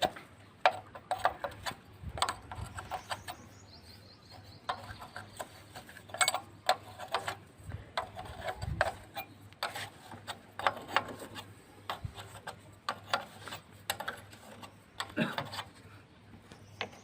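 Spanner working the nut on a diesel engine's fuel pump pipe: irregular metallic clicks and taps as the nut is loosened to bleed air from the pump.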